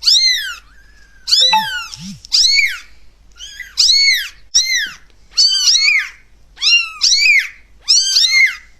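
A kitten meowing over and over, high-pitched mews about once a second, each rising and then falling in pitch.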